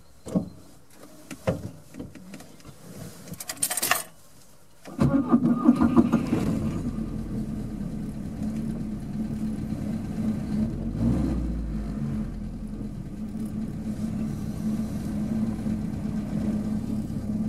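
A few knocks and a short rustle, then a car engine starts about five seconds in and settles into a steady idle.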